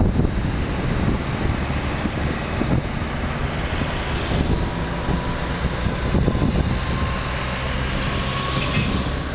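Road traffic passing below: wartime military trucks and jeeps of a vehicle convoy, mixed with ordinary cars, making a steady rumble of engines and tyres.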